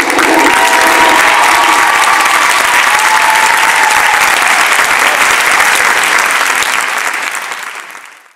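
Audience applauding loudly as a dance number ends, fading out near the end.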